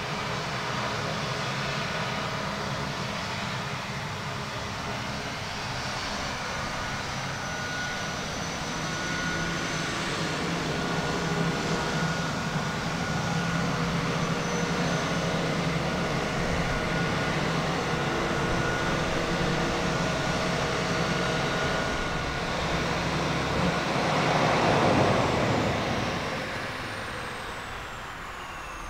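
Pilatus PC-9's single PT6A turboprop engine running at taxi power: a steady propeller drone with a high turbine whine. It swells briefly about 25 seconds in, then grows quieter near the end as a high whine slides down in pitch.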